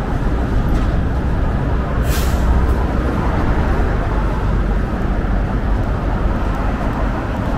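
Steady rumble of heavy road traffic on a busy city avenue, with a short sharp hiss about two seconds in from a heavy vehicle's air brakes.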